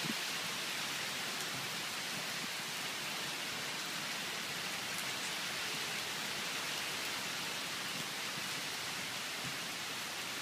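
Cyclonic storm of strong wind with rain: a steady, even rushing hiss with no breaks.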